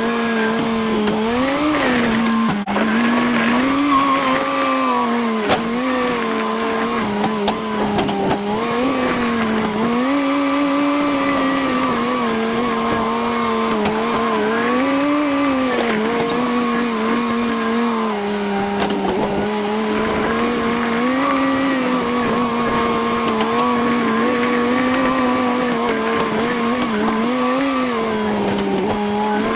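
Engine running steadily, its pitch briefly swelling up and back down every few seconds as the throttle changes.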